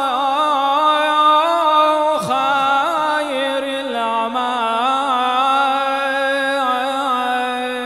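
A male muezzin's unaccompanied voice singing the Shia call to prayer (adhan), drawing out the 'hayya 'ala al-falah' phrase in long, ornamented notes that waver up and down in pitch, with a short break about two seconds in.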